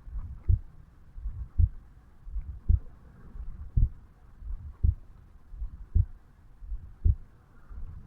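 A 35-year-old man's heartbeat picked up over the mitral valve area of the chest at rest after waking: steady, even low thuds at about 55 beats a minute, seven strong beats each followed by a softer one.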